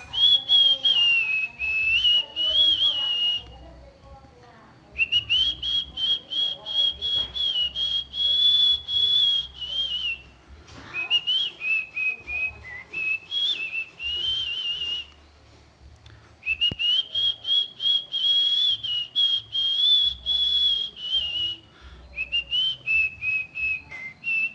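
A person whistling a melodious, warbling tune in imitation of a murai bird's song. It comes in fluttering phrases of a few seconds each, with short pauses between them.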